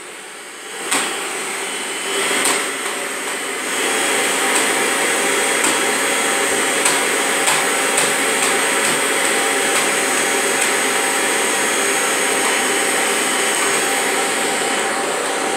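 Bagged upright vacuum cleaner running with its hose and floor wand being pushed over a tiled floor: a steady whine that gets louder in two steps, about two and four seconds in, then holds. There is a knock about a second in and a few light clicks along the way.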